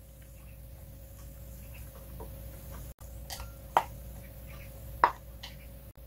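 Chopsticks lightly tapping and clicking against plastic side-dish containers and a bowl while side dishes are served, with two sharper clinks about a second apart near the end. A faint steady hum runs underneath.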